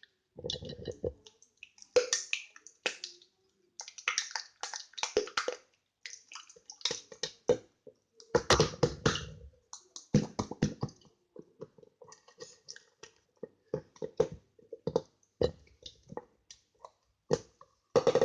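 Slime being squeezed and poked by hand, making a run of wet squelches, pops and clicks in irregular bursts, played up to sound suggestive.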